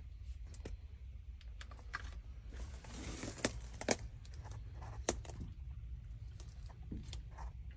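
Scattered light clicks and knocks of handling and movement, with a burst of them about three to four seconds in and a sharper click about a second later, over a steady low rumble.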